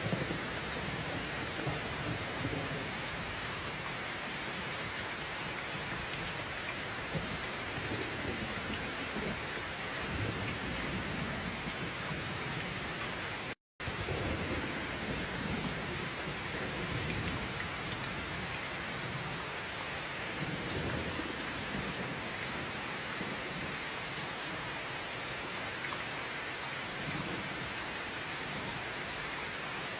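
Heavy, steady rain with low thunder rumbling now and then underneath. The sound cuts out completely for a split second about fourteen seconds in.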